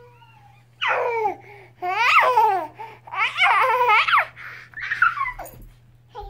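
A baby laughing hard in four high-pitched bursts, each a second or less, about a second apart.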